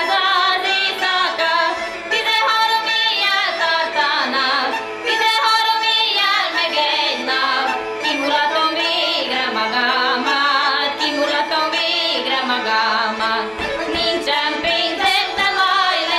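Two women singing a folk song to a Hungarian bagpipe (duda), the pipe holding a steady low drone under the melody.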